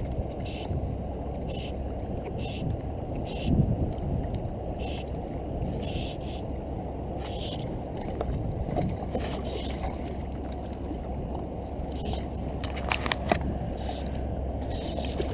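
Wind rumbling on the camera microphone and water sloshing against the jetty rocks, a steady low noise with softer splashy hisses about once a second. A few sharp clicks come near the end.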